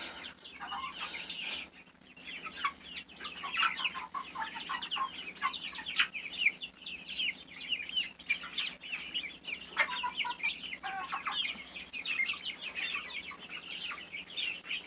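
A flock of young chickens cheeping continuously in many short, overlapping high peeps, with a few lower calls about ten seconds in.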